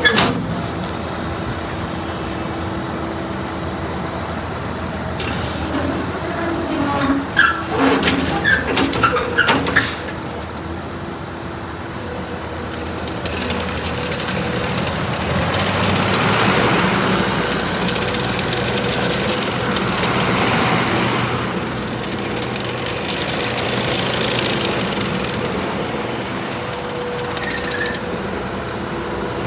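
ASV RT-50 Posi-Track compact track loader's diesel engine running steadily, with a run of sharp metallic clanks and knocks about six to ten seconds in. The engine grows louder for several seconds in the middle.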